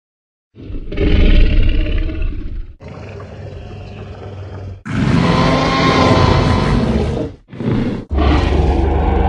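Tyrannosaurus rex film sound effects played one after another: a loud growl begins about half a second in, followed by a quieter growl, a louder pitched roar, a very short call, and another loud growl near the end.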